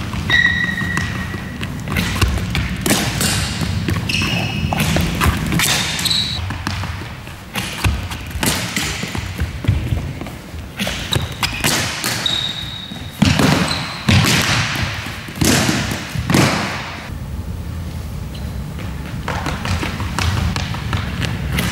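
Floorball stick and plastic ball: repeated irregular clicks and knocks as the blade handles and strikes the ball, with the ball hitting the goal and boards, and a few short high squeaks between the hits.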